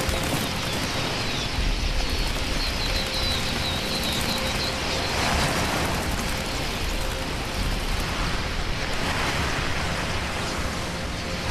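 The dense, steady rushing roar of a huge flock of red-billed queleas in flight, like heavy rain, with thin high chirps of the birds above it between about two and five seconds in.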